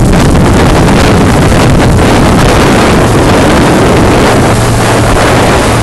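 Motorboat running under way: a steady, low engine drone under heavy wind buffeting on the microphone.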